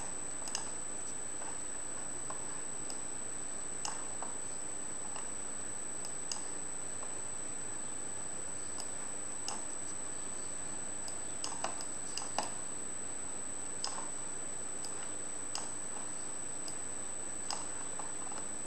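Scattered single clicks of a computer mouse, about a dozen spread irregularly, with a small cluster around the middle, over a steady background hiss with a thin high steady tone.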